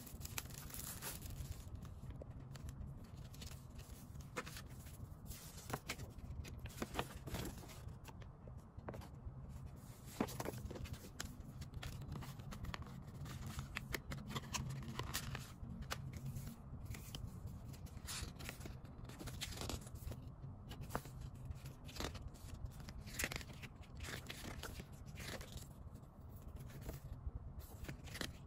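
Hands handling a cardboard album digipack and its paper inserts: card and paper rustling, folds and pages flicked open, with scattered light taps and scrapes over a low steady hum.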